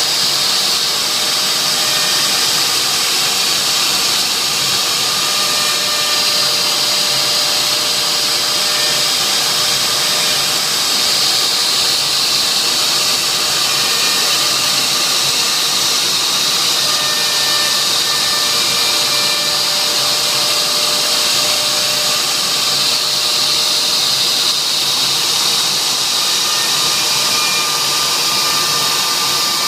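CNC router spindle running steadily as it carves a wooden board, a continuous high-pitched whine and hiss with faint tones that shift slightly as the cut goes on.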